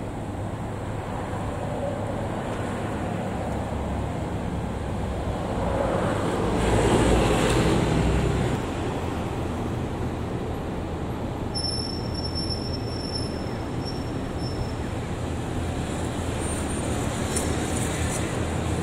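Road traffic noise: a steady rumble of passing cars, with one vehicle passing close and loudest about seven seconds in.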